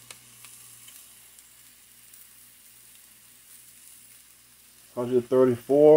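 Lean elk burger patties sizzling quietly in a frying pan, with hardly any fat in it. Near the end a man's voice sounds briefly, louder than the sizzle.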